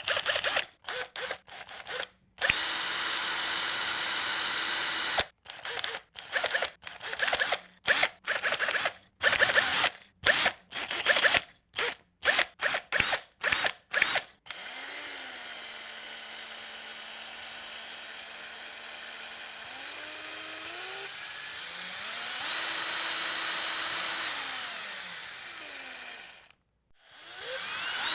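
Electric drill motor whirring, first in many short trigger blips, then in longer runs where the whine drops, holds and climbs again as the variable-speed trigger is eased and squeezed. It stops briefly about a second and a half before the end, then starts up again.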